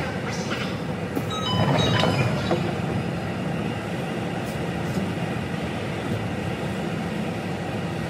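Tsukuba Express train running underground, heard from behind the driver's cab: a steady rumble of wheels on rail that swells about two seconds in, with a few faint high whining tones at that point.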